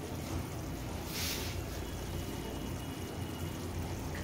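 Onion-and-cream curry gravy simmering in a steel pan on a gas stove: a soft, steady bubbling hiss over a low hum, with a brief brighter hiss about a second in.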